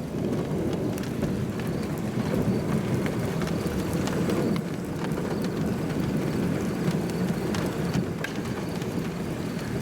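Steady rain with scattered drop ticks over a steady low rumble, as a severe thunderstorm's rear flank downdraft moves in.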